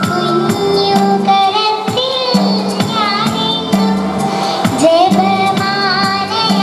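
A young girl singing a Malayalam Marian devotional song into a microphone over instrumental accompaniment with a steady percussive beat and repeating bass notes.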